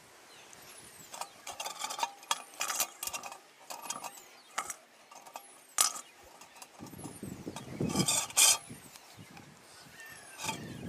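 Dry twigs being snapped to size and set into a small stainless steel wood-burner stove: a scattered series of sharp light clicks and knocks, with a gust of wind on the microphone near the middle.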